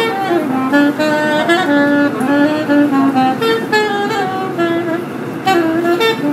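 Soprano saxophone playing a jazz melody, a single line of short and held notes rising and falling, over the running noise of a moving metro train.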